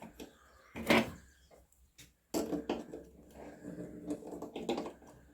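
Workshop handling noise as the handbrake cable is being taken off: a sharp knock about a second in, then, after a short pause, another knock followed by a stretch of quieter clunking and rattling of parts.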